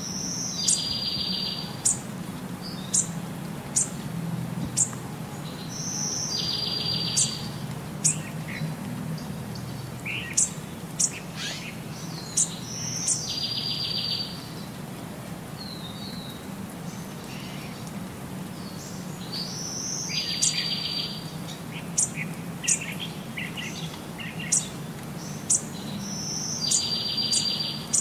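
Small birds chirping and singing, a birdsong recording whose same phrase pattern repeats about every six and a half seconds, over a steady low hum.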